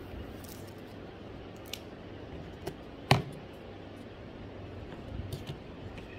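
Light handling noise over a steady low hiss, with a few faint clicks and one sharp knock about three seconds in.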